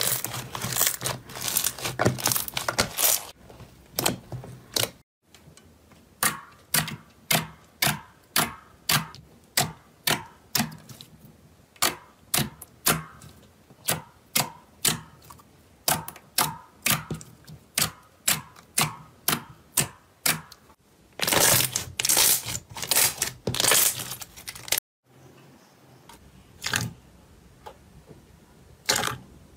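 Slime being pressed, kneaded and poked by hand, giving crisp clicks and pops. There is dense crackling near the start and again about three quarters of the way through, and a steady run of single clicks, about two a second, through the middle.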